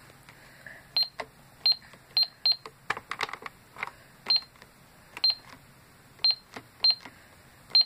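2004 McDonald's toy cash register: its buttons pressed one at a time, each press giving a click and a short, high electronic beep. About a dozen beeps come at uneven intervals, with a few plastic clicks without a beep near the middle.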